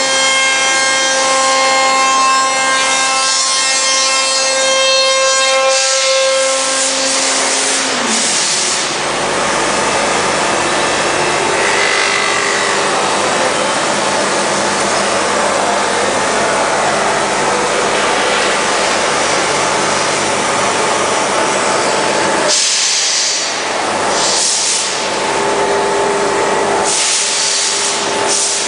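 Spindle of a PADE SPIN 5-axis CNC machining centre running a sanding tool against the edge of a curved plywood chair back. A steady high whine fades out about eight seconds in. After that comes a rough rubbing hiss, with a few brief louder hisses near the end.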